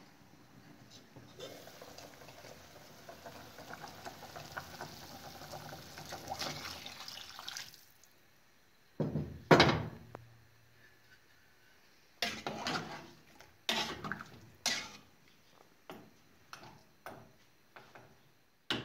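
Broth being scooped and ladled from an aluminium pot: liquid splashing for the first several seconds, a loud knock about halfway through, then a run of clinks and clatters of a metal ladle against the pot and a china plate.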